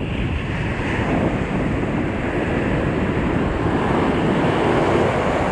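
Ocean surf washing on the beach, with wind noise on the microphone, building slightly toward the end.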